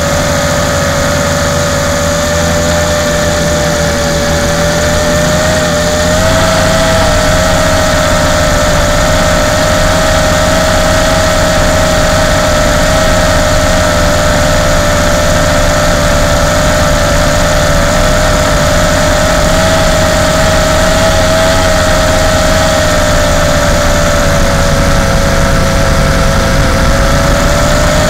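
Latrax Alias quadcopter's motors and propellers, heard close up through its onboard camera: a loud, steady high whine in flight. The pitch wobbles for a few seconds, then the whine gets a little louder about six seconds in and holds steady.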